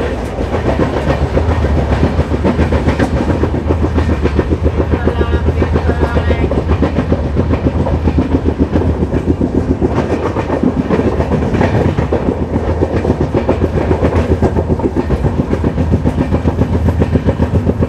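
Wheels of an LHB passenger coach running at speed over the rails: a loud, rapid, even clickety-clack. The beat holds steady, as heard from the coach's open doorway.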